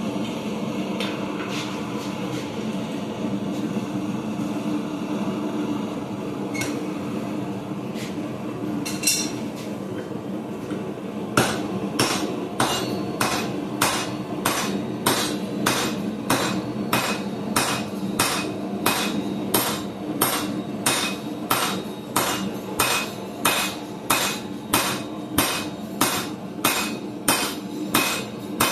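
A steady low roar for the first several seconds, then from about a third of the way in a blacksmith's hammer strikes the stock on the anvil in an even rhythm, about one and a half blows a second. He is upsetting a chunk of railroad anchor tie into a block for a hardy rivet header.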